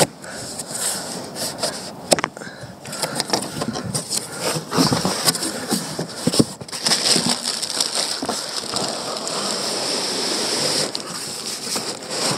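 Handling noise from a long cardboard box and the plastic-wrapped part inside it: irregular rustling, crinkling and scraping with many sharp clicks and knocks as the wrapped part is slid out of the box.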